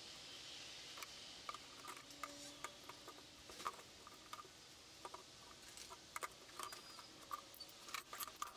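Faint scattered taps and clicks of cherry wood pieces being handled and fitted together on a table, with a quick cluster of clicks near the end.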